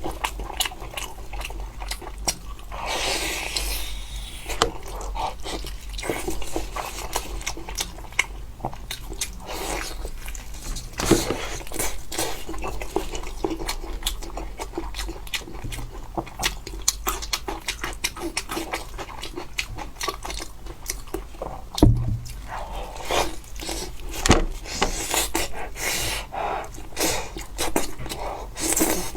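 Close-up eating sounds of someone chewing and biting into lamb ribs: irregular wet smacks and clicks of mouth and meat. There is a single dull thump about two-thirds of the way through.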